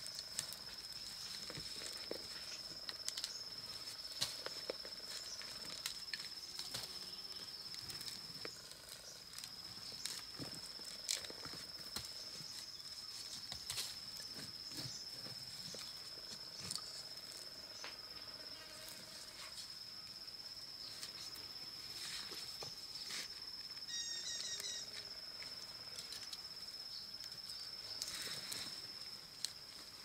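A steady high-pitched insect drone, with scattered scrapes and knocks from a hoe and gloved hands digging through loose soil. A short run of rapid chirps comes near the end.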